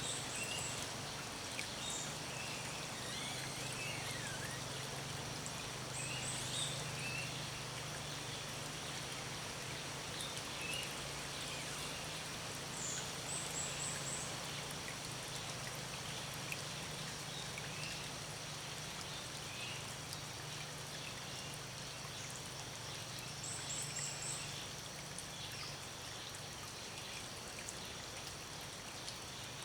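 Natural outdoor ambience: steady stream-like rushing hiss with songbirds giving short high chirps every few seconds, some in quick runs of three or four notes, over a faint steady low hum.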